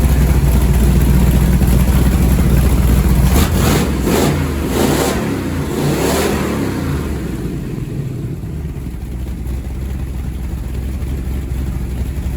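Freshly rebuilt Ford 427 Medium Riser V8 running on its first start-up. It is revved in a few quick blips about midway, then settles back to a steadier, quieter idle.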